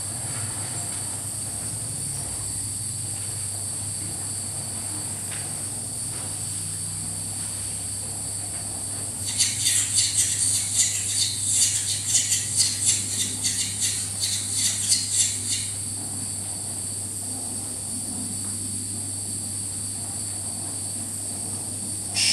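Electroacoustic music: a steady low hum under steady high whines. About nine seconds in comes a stretch of rapid high-pitched pulsing that lasts about six seconds, then stops.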